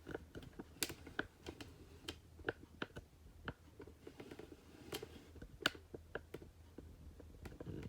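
Light, irregular clicks and knocks of plastic K'nex pieces on a hand-built model carnival ride. The sharpest click comes late, a little before the end.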